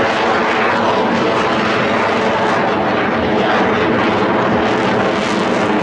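F-22 Raptor's twin Pratt & Whitney F119 turbofans, a loud, steady jet roar as the fighter flies a hard turn overhead.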